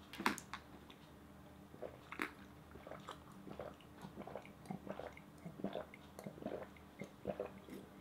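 Faint mouth sounds of a person chewing a mouthful of dry ground herbs and then swallowing water in a run of gulps, about two a second in the second half.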